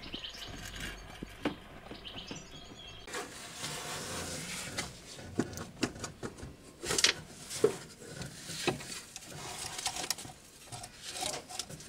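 Scattered light clicks and knocks of a hand and tools working among engine-bay parts, with the loudest few about two-thirds of the way through.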